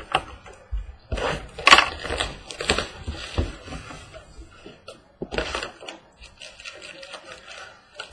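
Crinkling and tearing of packaging as a sealed box of baseball cards is opened, in irregular rustling bursts, the loudest about two seconds in.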